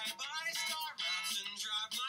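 Music playing: a singing voice over guitar accompaniment.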